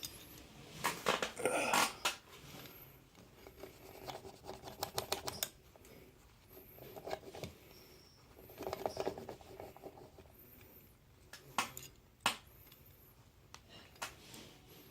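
A cotton ball rubbing burnt, blackened metal polish off the sides of a brass belt buckle, in several short bouts of scratchy rubbing. Two sharp clicks follow near the end.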